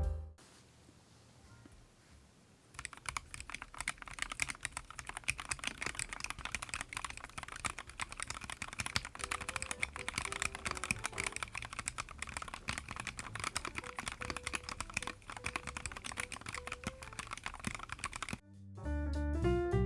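Typing on a YUNZII X75 PRO mechanical keyboard: a fast, continuous stream of keystroke clacks. It starts about three seconds in and stops shortly before the end.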